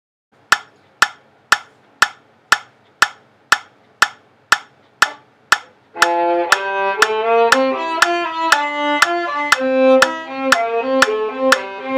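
A metronome clicking steadily twice a second, alone at first; about halfway through a violin comes in, bowing a melody over the clicks.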